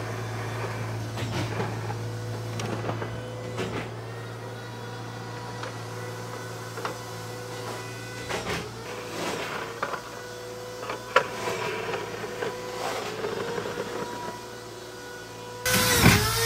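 Excavator running: a steady engine hum with a whine that dips and rises in pitch several times as it works, and scattered clanks. Near the end a louder sound cuts in abruptly.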